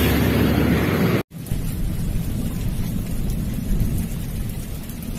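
Steady wash of heavy rain and water on a flooded street, with a deep rumble underneath. It breaks off sharply about a second in, then resumes as a slightly quieter wash of the same kind.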